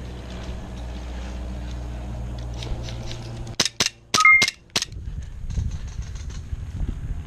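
Airsoft guns firing: about five sharp cracks in quick succession over a little more than a second, starting about halfway in.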